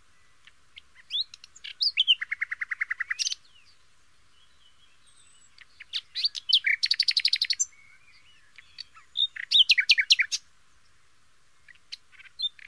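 A songbird singing in short separate phrases a few seconds apart: quick, sharp, falling notes, two of the phrases running into a fast, even trill.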